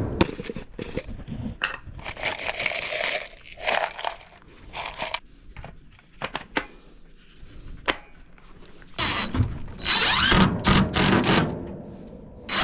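Tool work on old shed timber: scraping and scattered knocks, then a power tool running in short bursts from about nine seconds in.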